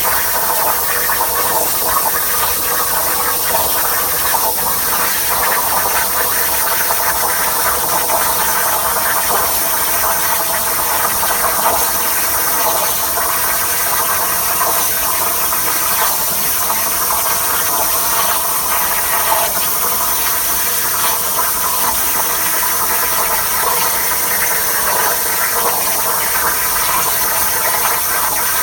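CNC plasma cutter's torch arc cutting, a steady hiss with no breaks.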